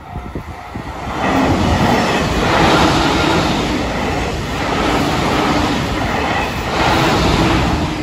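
A JR Kyushu electric commuter train passing close by at a level crossing: the rush of wheels on rail builds about a second in, swells twice as the cars go past, and falls away at the end.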